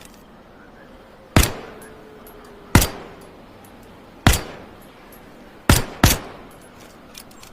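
Flicker lighter gun being fired: five sharp, loud snaps, spaced a second or more apart at first, the last two in quick succession, each dying away quickly.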